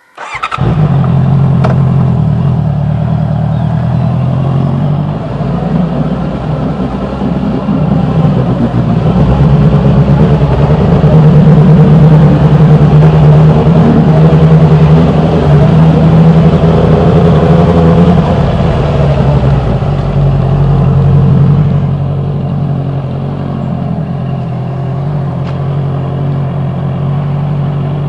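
Honda CBR 650R's inline-four engine through an Austin Racing aftermarket exhaust, starting up suddenly and then running with the revs rising and falling. It drops to a lower, steadier note a little over three-quarters of the way through.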